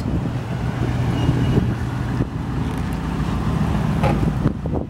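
2005 Ford F-250 pickup's gasoline engine idling steadily, with wind buffeting the microphone.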